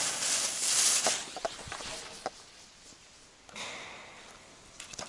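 Lit red hand flare hissing loudly as it burns, cutting off about a second in. After that, a few scattered short knocks.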